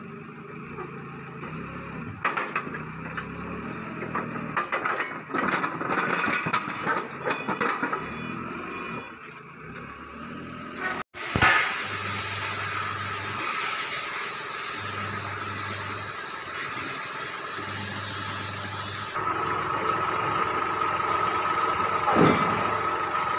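A diesel machine engine runs while steel excavator track links clank, with many irregular metal knocks in the first half. After a sudden break about eleven seconds in, a steady engine noise continues.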